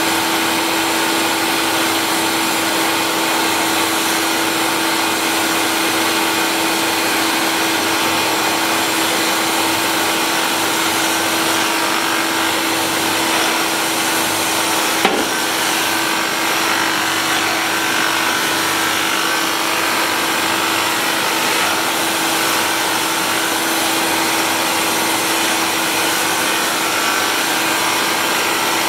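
Grinding spindle running with an abrasive cup wheel wet-grinding the face of an automatic-transmission bell housing under oil and emulsion: a steady hiss over a constant motor hum, in the spark-out pass with no further feed. A single short click about fifteen seconds in.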